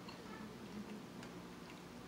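Faint eating sounds: chewing with scattered small wet mouth clicks, over a low steady hum.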